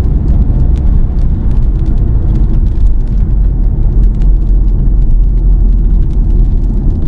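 Steady low road rumble inside a moving car, with scattered light ticks throughout.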